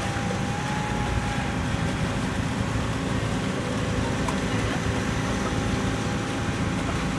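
Engine of a truck-mounted concrete pump running steadily, a low even drone with a faint steady whine over it.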